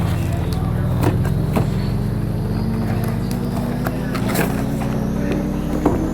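A steady mechanical hum that rises slowly in pitch, over a low rumble, with scattered sharp clicks.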